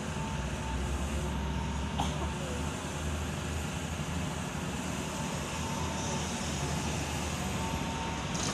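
Hitachi hydraulic excavator's diesel engine running steadily under load as the machine lifts and swings a full bucket of soil, with a single sharp click about two seconds in. Near the end the load tips from the bucket into the dump truck's bed.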